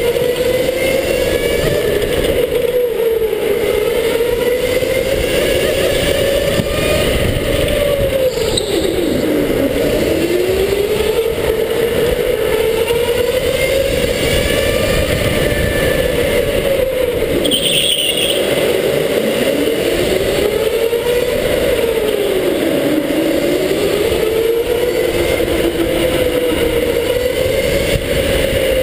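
Electric go-kart's motor whining while it laps, its pitch sinking into each corner and climbing again on the straights, over a steady rumble from the track. Two brief high squeaks stand out, about a third and about two-thirds of the way in.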